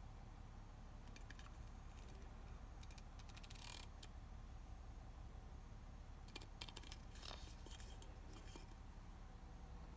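Near silence: low room tone with a few faint clicks and brief rustles.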